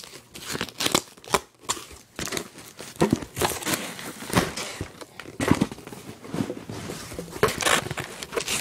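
Cardboard shipping box being worked open by hand: irregular rips, scrapes and crinkles of cardboard, tape and packing paper.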